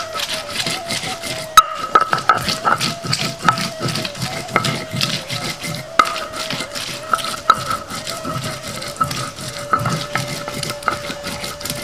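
A kitchen utensil repeatedly clinking and knocking against a pot or bowl, as in stirring or working food in a dish, with short ringing knocks every second or so.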